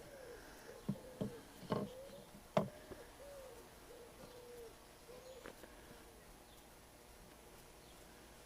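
A dove cooing repeatedly in the background: a run of short, soft, rising-and-falling coos. A few sharp knocks and clicks fall in the first three seconds, the loudest about two and a half seconds in.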